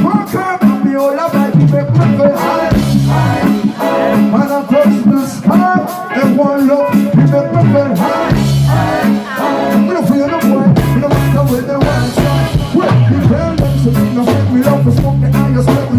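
Live reggae band playing, with drum kit and a steady bass line under a melody line.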